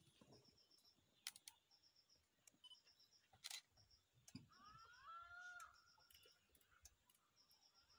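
Quiet forest background with small birds giving short runs of high chirps every second or so, a warbling call about five seconds in, and a few sharp clicks and snaps.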